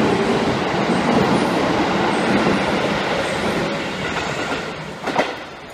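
Electric commuter train running along a station platform, its wheels clattering over the rail joints as it draws away and fades. A short knock about five seconds in.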